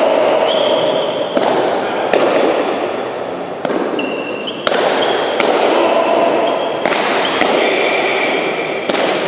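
Pelota ball struck back and forth in a rally on an indoor frontón: about eight sharp hits off the front wall and the players, roughly a second apart, each echoing through the hall.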